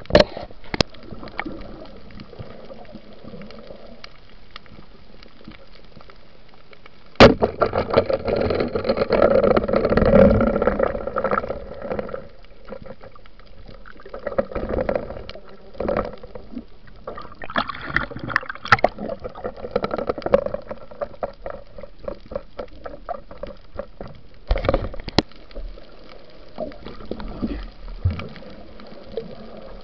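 Underwater bubbling and crackling heard on the camera, coming in bursts with a few sharp clicks among them, as a diver breathes out and handles the speargun.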